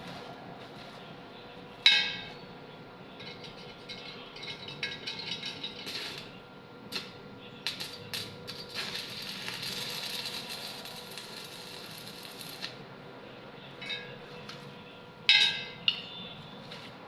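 Arc welding: the arc crackles and sizzles in short bursts, then burns with a steady hiss for about four seconds. A sharp, ringing clank of metal striking metal comes about two seconds in, and another near the end.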